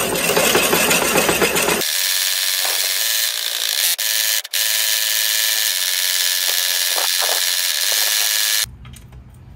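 Power drill spinning the Yardforce LM C38 cylinder mower's reel backwards against the bottom blade with fine valve-grinding paste between them (backlapping to sharpen dull blades): a loud, steady whirring grind. The sound changes about two seconds in, cuts out for an instant halfway, and stops near the end.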